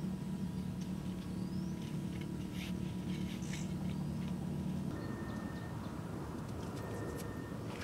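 Small metal hand trowel scraping and digging into dry, loose soil, a few scratchy scrapes over a steady low hum. About five seconds in the background changes abruptly to a fainter hiss with a faint steady high tone.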